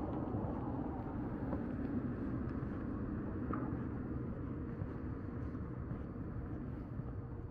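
Steady low outdoor rumble, easing off slightly toward the end.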